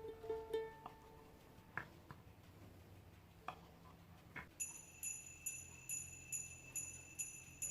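Soft background music: a faint pulsing tune fades out in the first second, a quiet stretch follows with a few light clicks, then a high jingling bell pattern starts, pulsing about two to three times a second, leading into a new music track.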